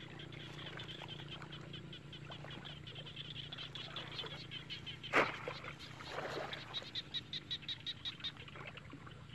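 A rapid run of short, high chirps, about four to five a second, from a calling animal in the surrounding wetland, most distinct in the last few seconds. A low steady hum sits underneath, and there is one sudden sharp sound about five seconds in.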